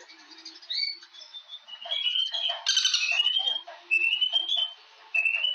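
Birds calling with many short, rising chirped notes, and a brief cluster of sharp taps or clicks about two and a half seconds in.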